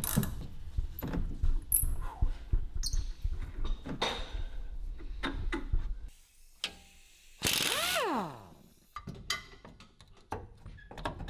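Hand ratchet wrench clicking in quick runs as a shock-mount bolt is turned, over a low rumble. About six seconds in it drops away; quieter metal clicks follow, with a short squeal falling in pitch near the end.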